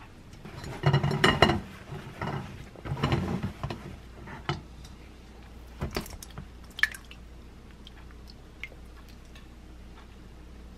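Thick homemade yogurt squelching as it is tipped out into a cheesecloth-lined stainless-steel sieve, with cloth and container handling. Several loud wet, rustling bursts come in the first few seconds, followed by a few light clicks.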